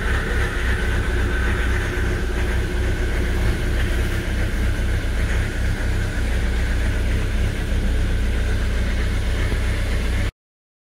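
2005 Ford Mondeo 2.0 TDCi four-cylinder diesel idling steadily just after a cold start on newly fitted glow plugs, heard from inside the cabin; it starts and runs, the sign that the glow plug repair has worked. The sound cuts off suddenly near the end.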